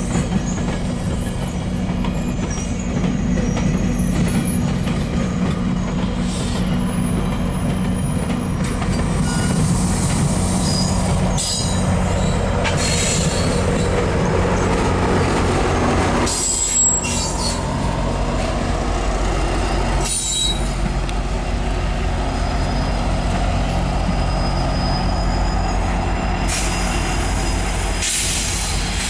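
A GO Transit push-pull train of bilevel coaches rolling slowly past, a steady rumble of wheels on rail with thin high-pitched wheel squeal in the first part. Partway through, the MP40PH-3C diesel locomotive pushing at the rear passes, and its engine's low steady drone takes over.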